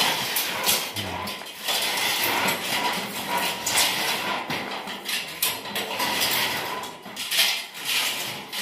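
Steel lattice truss sections clanking and knocking as they are handled and fitted together: an irregular run of metallic clinks.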